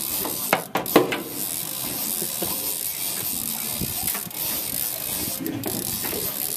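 Conventional fishing reel being cranked, its gears whirring and clicking as line is wound in against a heavy hooked fish. A steady hiss runs underneath, with a couple of knocks about a second in.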